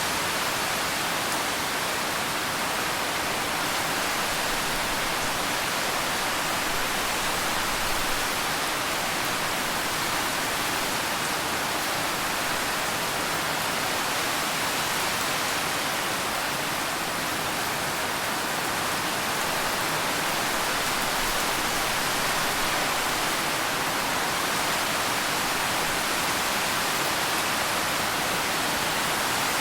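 Steady, even rain, a dense hiss with no separate drops or thunder standing out.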